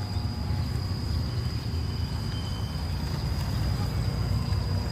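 Outdoor ambience: a steady low rumble with a continuous high-pitched insect drone over it.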